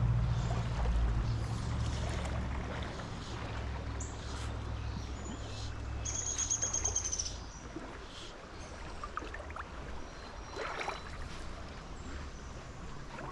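A small bird calling outdoors, a quick run of high repeated notes about six seconds in, over a low rumble that fades out about halfway through; faint scattered ticks follow.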